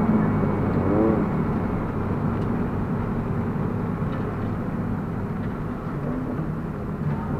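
Inside the cabin of a ZVW30 Toyota Prius race car at speed: its 2ZR-FXE 1.8-litre four-cylinder engine running steadily under road and wind noise, with a brief rising-and-falling whine about a second in and the overall sound easing off slightly toward the end.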